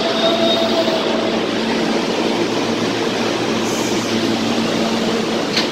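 New York subway train standing at the platform, its equipment giving a steady hum with several steady tones over a noisy rumble. A sharp click comes near the end.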